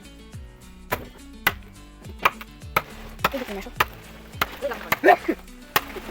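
A series of about eight sharp knocks, irregularly spaced half a second to a second apart, over background music.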